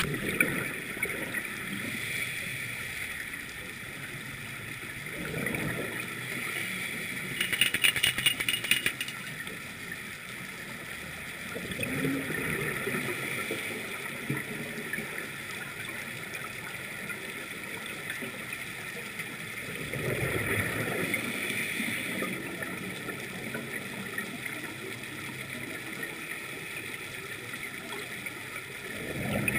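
Underwater sound of scuba exhaust bubbles, swelling about every seven to nine seconds with the diver's breaths over a steady hiss. A brief rattle of quick clicks comes about eight seconds in.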